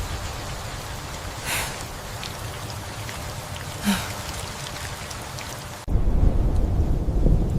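Heavy rain with two brief sharp cracks in the first half. About six seconds in, the sound cuts abruptly to a loud, low thunder-like rumble.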